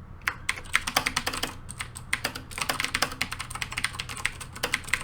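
Typing on a Razer BlackWidow Ultimate 2013 mechanical keyboard with clicky Cherry MX Blue switches: quick runs of sharp key clicks at an uneven pace, several a second.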